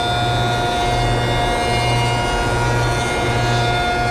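Jointer running while its cutterhead planes the edge of a plywood board fed slowly through by hand: a steady motor hum under the noise of the knives cutting the wood.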